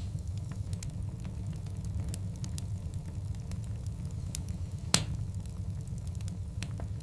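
Wood fire of large burning logs crackling, with scattered sharp pops over a steady low rumble of the flames; one loud pop about five seconds in.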